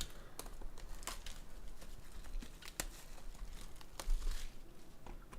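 Plastic wrapping crinkling and tearing with sharp crackles as a sealed trading-card box is opened, loudest about four seconds in.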